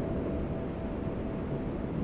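Wind blowing with a low rumble, while one lingering wind-chime note fades away over the first second and a half.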